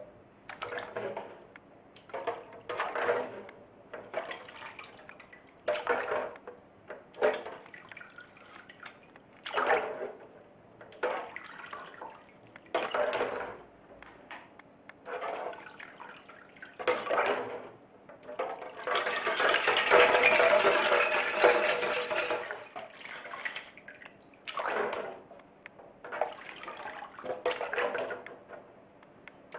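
Wire fryer basket of metal and plastic parts being sloshed up and down in cleaning liquid in a parts washer made from a deep fat fryer: short splashes every second or two, with the basket clinking. About two-thirds of the way through comes a longer, louder stretch of sloshing.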